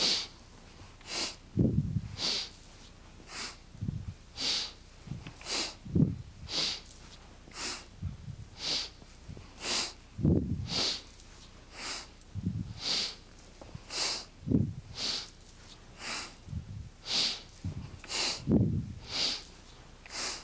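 A woman breathing hard and rhythmically, close to the microphone: short, sharp breaths about once a second, paced to a repeated bending-and-rising stretch. Softer low bumps come every couple of seconds.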